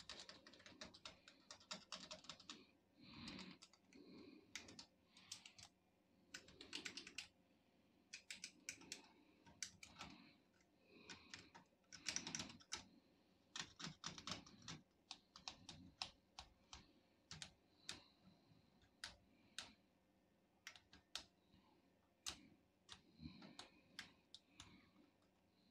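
Faint, irregular clicks and light scraping of a laptop's plastic parts being handled and pressed.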